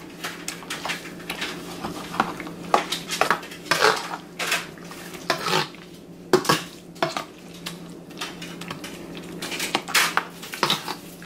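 Metal spoon clinking and scraping against a stainless steel colander while mashing and mixing soft roasted eggplant, onion and garlic. There are irregular clinks throughout, over a faint steady low hum.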